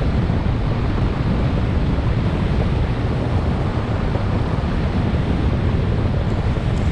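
Wind rushing over the microphone of a paramotor in flight: a steady, low rushing noise with no breaks.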